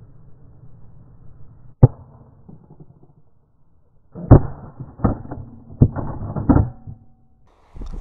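A single shotgun shot about two seconds in, sharp and loud. A few seconds later comes a run of four dull thumps, roughly one every 0.7 s.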